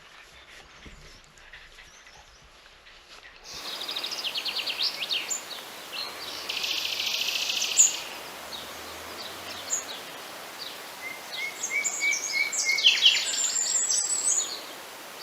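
Small birds singing and chirping in rapid trills and short whistles over a steady outdoor hiss. The birdsong starts suddenly about three and a half seconds in, after a quieter stretch.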